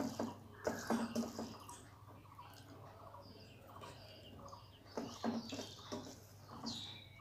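Fingers mixing and squeezing rice with fish curry gravy on a steel plate: short clusters of soft, wet clicks about a second in and again around five seconds in, quieter between.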